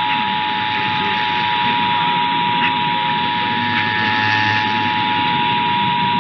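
Emergency Alert System attention signal: the steady two-tone alert sounding without a break, received over AM radio with static hiss underneath.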